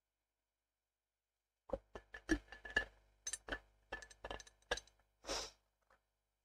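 A drinking bottle being closed and set down: a run of quick clinks and knocks, some with a short ring, beginning about two seconds in, then a short hiss near the end.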